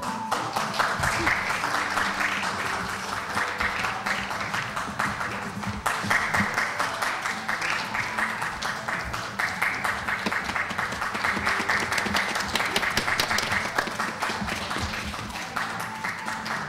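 Audience applauding, a dense steady clapping, with music playing faintly underneath.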